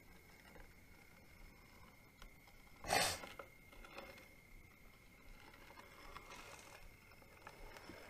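Glass shot glass slid in circles over a paper Ouija board: soft scraping and rustling, with one loud, brief rustling thump about three seconds in. A faint steady high whine sits underneath.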